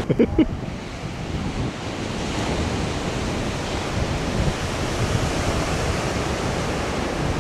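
Surf washing onto a pebble beach and wind blowing across the microphone, a steady rush of noise, with a few loud low thumps right at the start.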